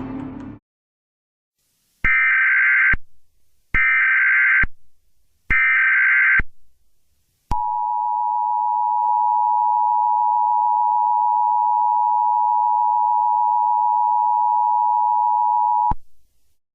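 Emergency Alert System tones. Three short bursts of the screechy digital SAME header data come first, then the two-tone EAS attention signal, a steady dual tone held for about eight seconds that cuts off abruptly.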